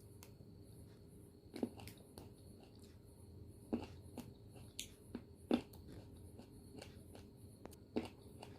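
Close-up eating sounds of grapes being bitten: about seven short, sharp pops and clicks at irregular intervals.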